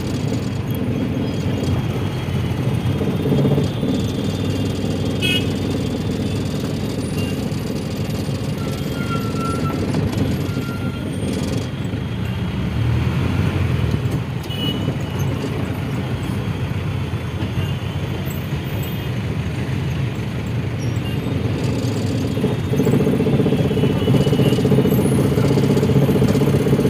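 Steady engine and road noise of a moving car heard from inside the cabin. It grows somewhat louder near the end, with a few brief high-pitched tones over it.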